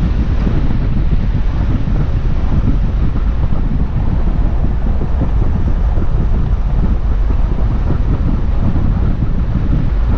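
Wind buffeting the microphone, a steady loud low rumble with the noise of a vehicle driving along a dirt track underneath.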